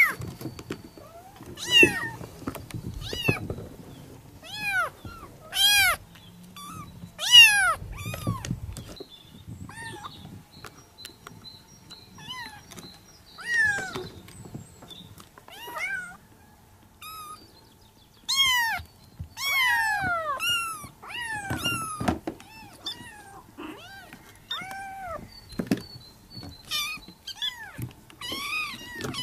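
Persian kittens mewing over and over, calling for their mother. The calls are short and high-pitched, each rising then falling, and often several overlap.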